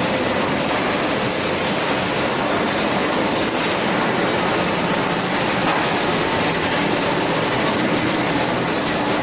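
Wood-shaving drying line machinery running: a loud, steady, dense mechanical noise with a faint hum under it.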